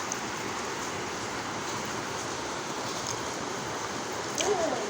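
Heavy rain falling, a steady even hiss, with a brief faint voice sound and a click near the end.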